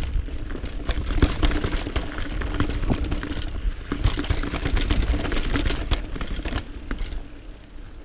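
Mountain bike rattling and clattering over rocky singletrack, with tyre noise on dirt and stones and a low rumble of wind and bumps on the camera, easing off near the end as the trail smooths.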